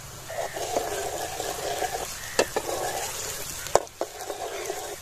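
Chopped onions and garlic-ginger paste sizzling as they fry in ghee in a large metal pot, stirred with a steel ladle. The ladle gives about three sharp clinks against the pot in the second half.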